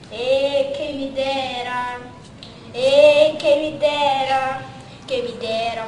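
Children's voices singing a capoeira song in long, held phrases, with short pauses between them.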